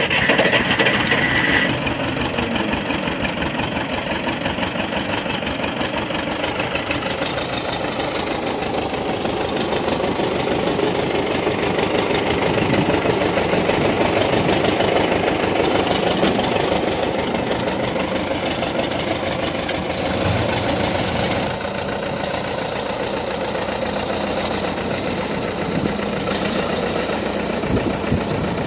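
Case 580 Construction King tractor-loader's engine running at idle, steady throughout, with a high whine over the first couple of seconds.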